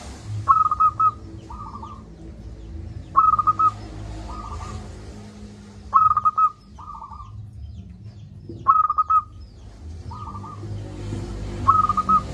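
Zebra dove (perkutut) cooing: five loud rolling coo phrases about three seconds apart, each answered by a fainter, similar phrase, over a steady low background rumble.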